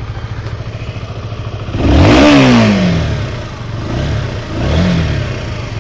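Single-cylinder motorcycle engine on its stock exhaust idling with an even pulse, blipped once hard about two seconds in and then twice more lightly before settling back to idle.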